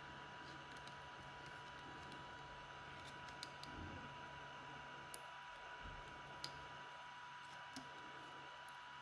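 A few faint small clicks and taps of a drone antenna and its plastic parts being pressed and snapped into place by hand, over a steady faint hum.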